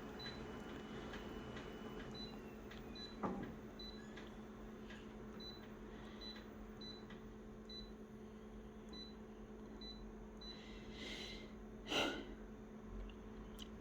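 Quiet room tone with a steady electrical hum and a faint high pip repeating about twice a second. A sharp knock comes about three seconds in, a brief rustle shortly before the end, and a louder knock just after it, typical of handling a small object.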